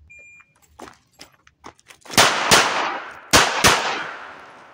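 A shot-timer start beep, then about two seconds later four loud .38 Special shots from a Colt Detective Special snub-nose revolver fired from the holster. They come in two quick pairs about a third of a second apart, the pairs about a second apart, each shot ringing on as it dies away. A few faint clicks of the draw come just before the first shot.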